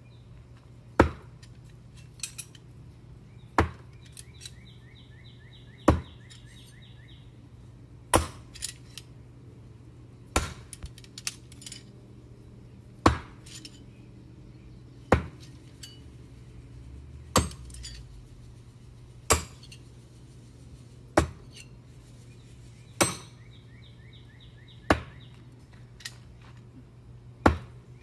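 Steel throwing knives thrown one after another into a target board, each striking with a sharp thunk about every two seconds, thirteen hits in all. Light clinks of the knives knocking together in the hand come between throws.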